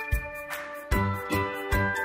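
Background music with a steady beat and bright bell-like tinkling; a pulsing bass line comes in about a second in.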